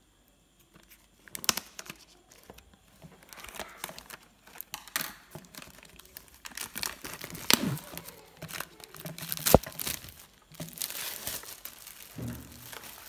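Clear plastic wrapping being torn and crumpled off a new vacuum flask: irregular crinkling and crackling with a few sharp clicks, the loudest about three-quarters of the way through.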